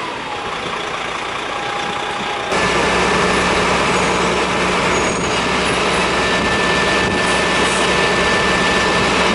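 Aerial ladder fire truck's diesel engine running steadily, stepping up louder about two and a half seconds in, with a thin steady whine from then on.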